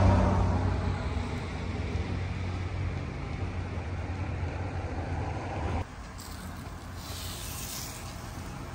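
An engine running with a steady low hum that cuts off abruptly about six seconds in, leaving a quieter background hiss.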